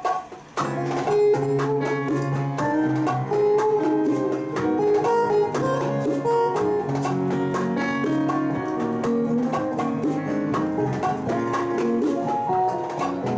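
Latin acoustic band playing live without vocals: guitar over piano and drums and hand percussion, starting about half a second in.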